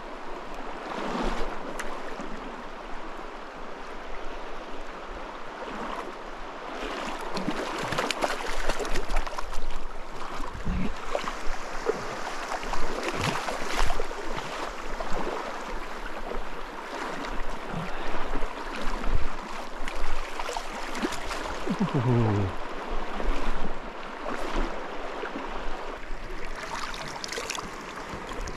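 Shallow creek water running, with irregular splashes and sloshing as a hooked trout is played and netted.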